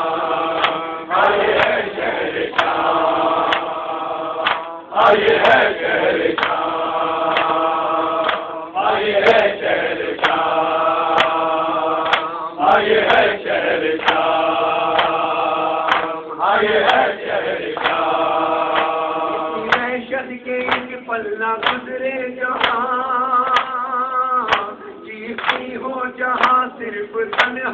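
Male voices chanting an Urdu noha (Shia lament) together in long held notes, over regular sharp hand slaps on the chest (matam). From about twenty seconds in, the held notes give way to shorter, quicker phrases with denser slaps.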